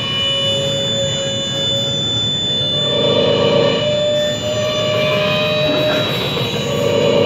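Experimental electronic music: a dense, noisy drone with several high and middle tones held under it, swelling about three seconds in and again near the end.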